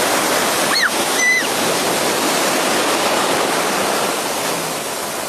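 Ocean surf washing in and breaking, a loud steady rush of water. About a second in, two brief high-pitched cries rise above it.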